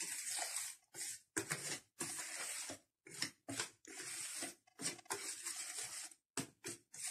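Small wire hand whisk beating thin cake batter in a plastic bowl: wet, swishing strokes that come in short, uneven bursts.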